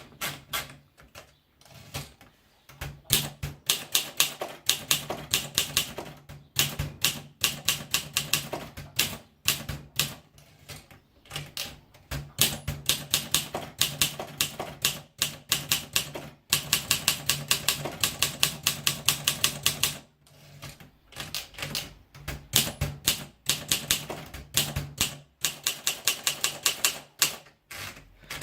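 Olympia SM2 manual portable typewriter being typed on: runs of rapid key strikes, several a second, broken by brief pauses. A faint steady low hum sits underneath.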